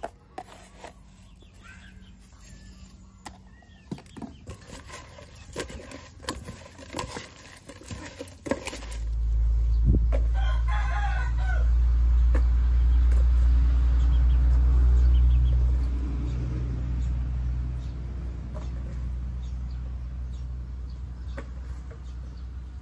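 A rooster crows once, about ten seconds in, over a loud low rumble that starts just before the crow and slowly fades. Before that there are only small scattered clicks and knocks.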